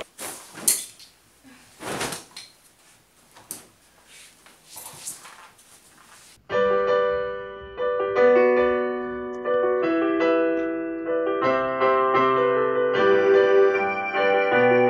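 Rustling, knocks and thuds of things being handled. A little over six seconds in, piano music starts suddenly and plays on, louder than the handling noise.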